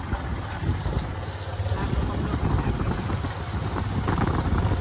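Motorbike running steadily on the move, with wind rushing over the microphone from riding.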